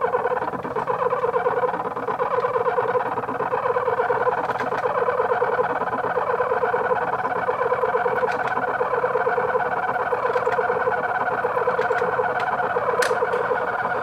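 Synthesized sound of a delayed, forced, noisy Hopf oscillator: a dense, rapidly fluttering buzz built on a strong mid-pitched tone with a higher one above it. A few faint high ticks come through, the clearest one near the end.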